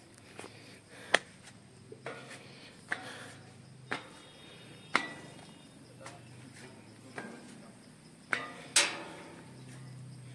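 A series of sharp knocks, about one a second for the first five seconds, then two more near the end, the last the loudest, over a faint low hum.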